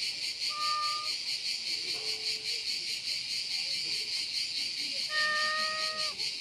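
A cat meowing: a short meow about half a second in and a longer, level-pitched meow near the end, over a steady high-pitched pulsing chorus of insects.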